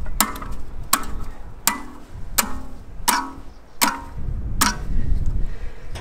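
Hammer striking a hand-held tool set against a log: seven sharp blows at an even pace, about one every three-quarters of a second, each with a short ring.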